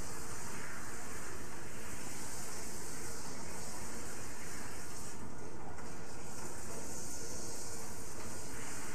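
Water spraying steadily from a kitchen sink's pull-out faucet sprayer onto a person's head and into the sink.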